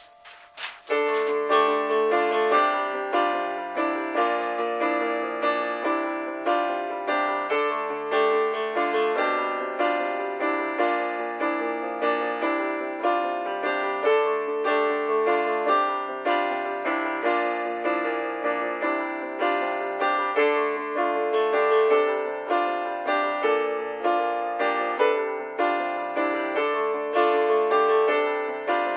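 Piano music from a computer-sequenced composition: after a brief pause, a steady, busy stream of struck notes starts about a second in and keeps an even rhythm.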